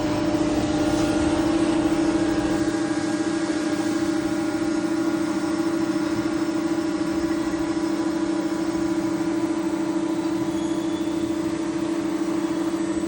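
CNC machining centre running, a steady mechanical hum with a fixed low tone and fainter higher tones over a noisy background.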